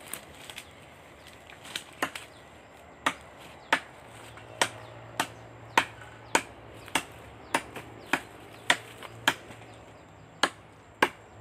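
Machete chopping branches off felled tree trunks: a steady series of sharp chopping strokes, about three every two seconds, with a short pause near the end.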